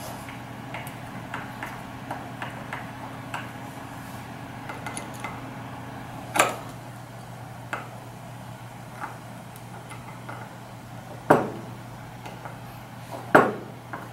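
A small metal driver clicking and scraping against tiny screws in a Braillo magnet rack's pivot-arm bar as they are loosened one by one, with three louder knocks about six, eleven and thirteen seconds in. A low steady hum runs underneath.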